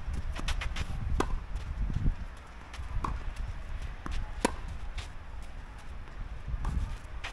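Tennis rally: a tennis ball struck by rackets and bouncing on the court, giving sharp knocks every second or two. The loudest come about a second in, at about three seconds and midway, with fainter ones between, over a low rumble.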